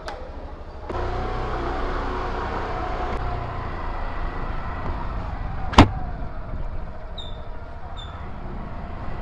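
Suzuki scooter running as it rides along a lane, a steady low rumble that picks up about a second in. A single sharp knock comes about six seconds in.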